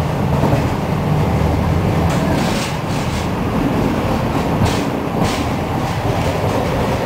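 Tram running along its tracks, heard from inside the car: a steady rolling rumble of wheels on rail, with irregular sharp clacks from the wheels over the track.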